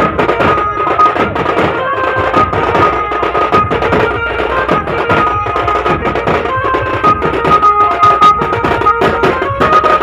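Loud drum-led Indian music played over a festival sound-system setup: fast drum strokes under a held melody line.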